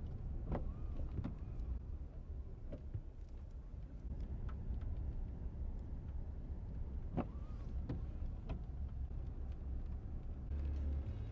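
Steady low rumble of a car driving, with scattered light clicks and a couple of brief squeaks.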